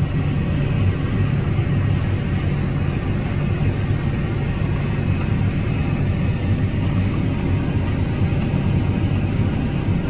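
John Deere combine harvesting corn, its engine and 708C corn head running steadily with a low hum.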